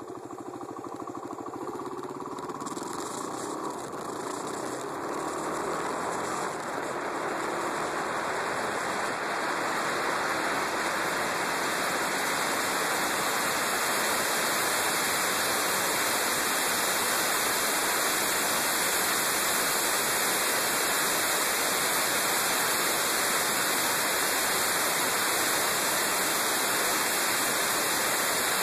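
Yamaha WR250X's single-cylinder four-stroke engine pulling away, its pitch rising over the first few seconds. A steady rush of wind on the microphone then builds as speed rises, becomes the loudest sound and drowns the engine out.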